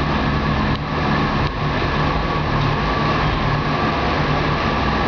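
Car audio subwoofers playing a bass-heavy rap track very loud, the low bass overloading the microphone into a dense, distorted wall of sound.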